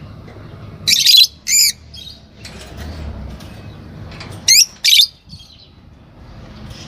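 Fischer's lovebirds giving shrill chirps: two pairs of short, sharp calls, one pair about a second in and another about four and a half seconds in, over a low steady hum.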